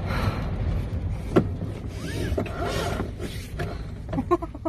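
Steady low rumble inside a car, with a single sharp click about a second and a half in.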